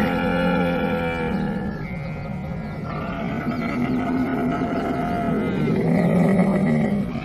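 Camel calling in long, drawn-out cries with many overtones: one dies away about a second and a half in, and another starts about three seconds in and cuts off abruptly at the end.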